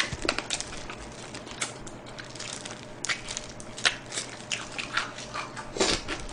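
A person chewing and biting into soy-barbecue-glazed fried chicken: a string of short, irregular mouth clicks.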